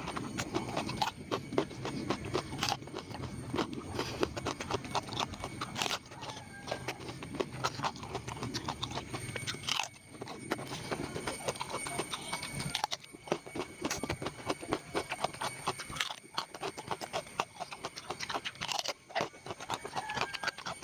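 Close-miked chewing and mouth sounds of someone eating papaya: dense, irregular wet smacks and crunchy clicks.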